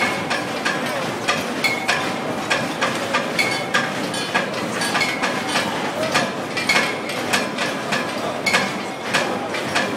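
Metal being struck over and over, about three clanging hits a second with a ringing tone, over a steady background of noise.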